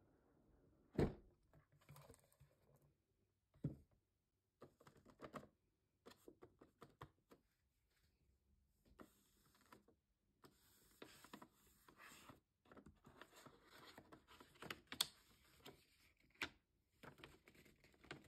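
Faint handling of a cardboard headphone box and its paper wrapping: scattered taps, light knocks and short rustles as the box is handled and its lid lifted off, the loudest knocks about a second in and near four seconds.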